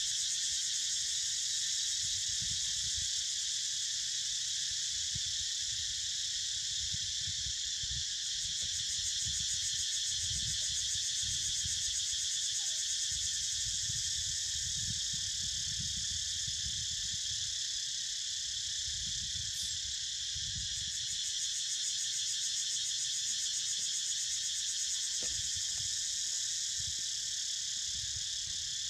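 Steady, continuous high-pitched chorus of insects with a fine rapid pulse, over an uneven low rumble.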